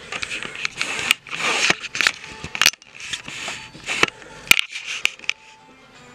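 Handling noise from a Sony Cyber-shot compact camera with its memory-card door open: a string of sharp, irregular clicks and short scrapes of small plastic parts.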